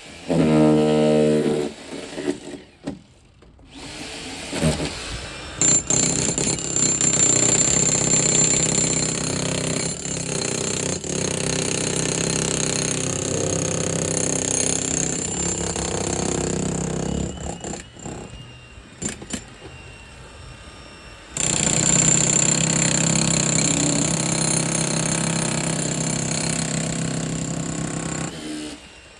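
Jackhammer breaking up concrete, hammering steadily in a short burst near the start, then two long runs with a pause of a few seconds between them.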